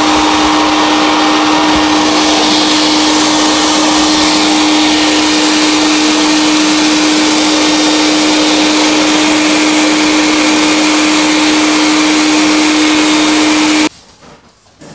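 An electric blower motor runs steadily and loudly, with a constant hum and a rush of air. It cuts off suddenly near the end.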